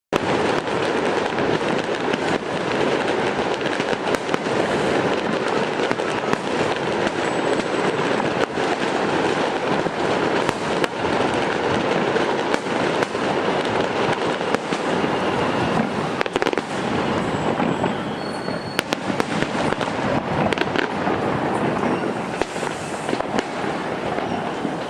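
Fireworks display: a dense, continuous crackle of many shells bursting, thick with rapid sharp pops, easing slightly in the last several seconds.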